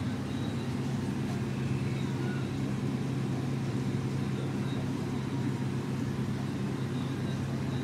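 Aquarium pump humming steadily, a constant low hum.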